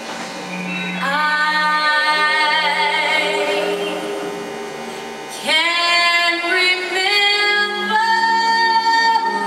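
Female vocals singing long, drawn-out notes as part of the performance music, with a new phrase coming in sharply about five and a half seconds in.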